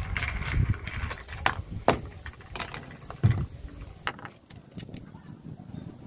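A few sharp clicks and metallic knocks from an angle grinder's flange nut and cutting disc being unscrewed and lifted off by hand; the grinder itself is not running. The loudest knock comes a little after halfway.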